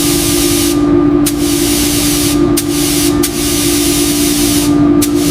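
Paint spray gun hissing in bursts of one to two seconds, with short gaps and a couple of quick puffs, as coats of paint go onto a model locomotive. A steady low hum runs underneath.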